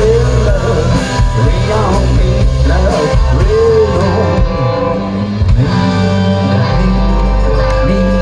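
Live rock band music: a guitar plays lines that bend up and down in pitch over a steady bass.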